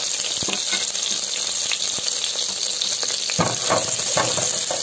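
Chopped onion sizzling in hot melted margarine in an enamel pot, a steady hiss. From about three and a half seconds in, a spatula stirring the onion adds a run of short scrapes and taps against the pot.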